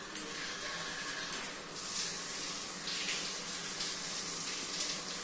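Handheld shower head with three spray settings spraying water onto a tiled floor: a steady hiss of spray hitting tile that brightens and changes a couple of times as the spray pattern shifts.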